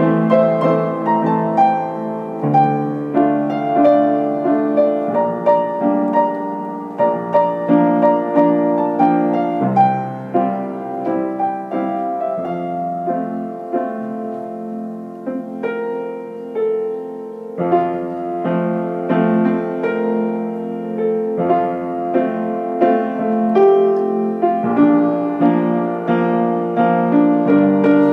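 Solo piano playing an original composition, struck notes ringing over sustained chords. It softens about halfway through and grows fuller again a few seconds later.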